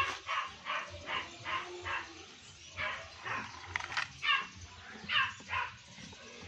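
A dog barking over and over, about a dozen quick barks at two to three a second, with a short break about two seconds in and another near the end.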